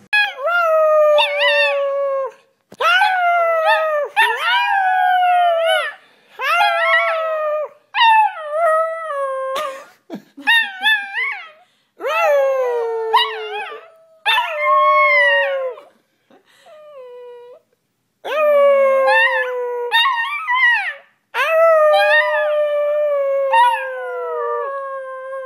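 Dachshund puppy howling: a series of about ten drawn-out howls, each one to three seconds long with short breaks between them. The pitch wavers within each howl and slides down toward its end.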